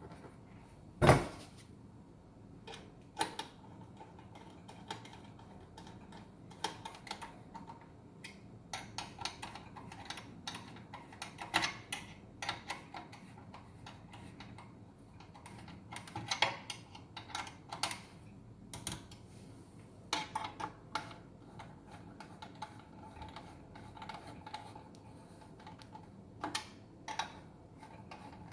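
Scattered small metallic clicks and taps of bolts and a hand tool as a cover's four mounting bolts are put in and tightened, with one sharper knock about a second in.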